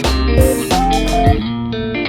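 Background music: a guitar-led instrumental with bass and drums.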